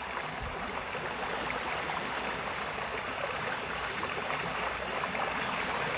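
Recorded sea sounds: a steady, even wash of waves with no distinct breaks.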